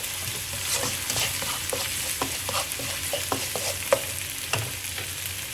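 Chili paste and sliced onions sizzling in hot oil over medium-high heat, with irregular scrapes and taps of a utensil stirring them in the pan.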